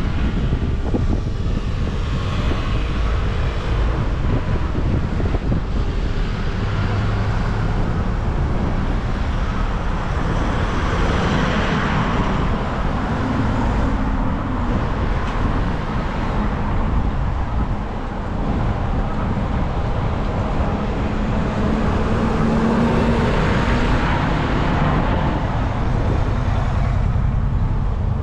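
Road traffic passing, with vehicles swelling past twice, near the middle and again later, over steady wind buffeting on the microphone.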